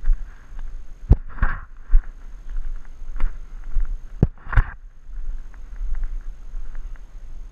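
Two sharp tennis-racket strikes on the ball, about three seconds apart, each followed by a brief rush of noise, over a low rumble of wind on the microphone.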